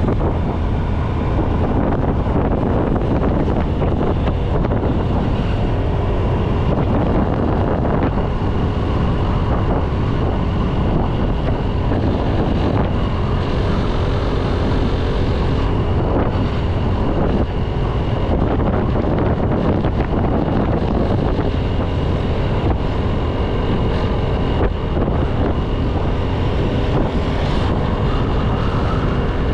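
Motorbike engine running at a steady riding speed, with wind rushing over the microphone.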